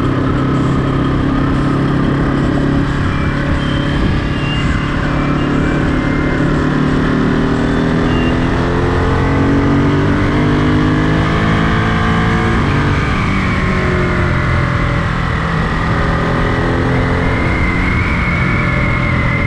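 Ducati Monster 937's L-twin engine running while riding, with wind noise on the microphone; the engine pitch climbs as it accelerates between about 6 and 12 seconds in.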